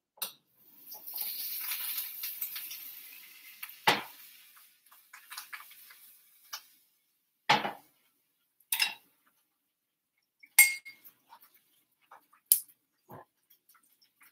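A metal spoon clinking and knocking against a stainless steel saucepan about seven times. In the first few seconds there is a hiss of food frying in the pan that swells and then fades away.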